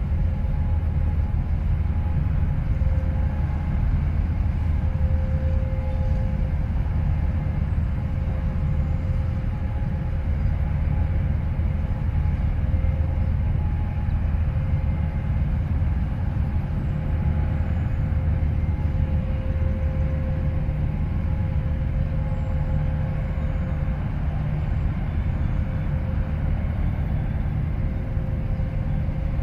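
Steady low machinery rumble with a constant hum over it, unchanging throughout.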